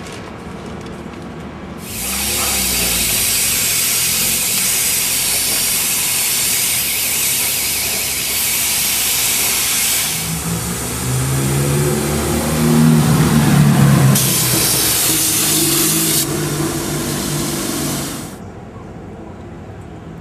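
Compressed-air paint spray gun spraying paint onto a camper van's bodywork: a loud, steady hiss that starts about two seconds in and stops near the end, with two short breaks. A lower hum runs under it for a few seconds past the middle.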